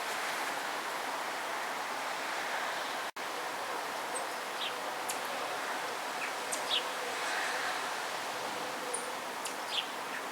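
Heavy rain falling, a steady even hiss, with a few faint short high chirps and ticks scattered through the second half. The sound cuts out for an instant about three seconds in.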